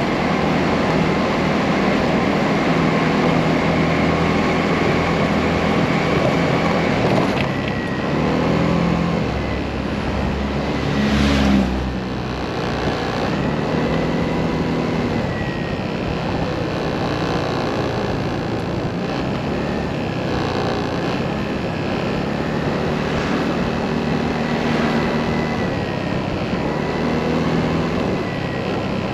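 Motorcycle engine running under way, with rushing wind and road noise; the engine note drops and climbs several times as it slows and speeds up, with a brief louder swell about eleven seconds in.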